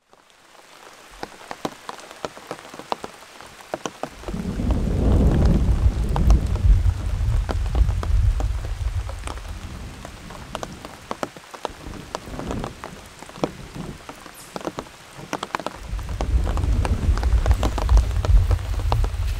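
Heavy rain falling, with many sharp drops striking close by, fading in at the start. Two long, deep rumbles of thunder roll through, one from about four seconds in to about ten seconds, and another building near the end.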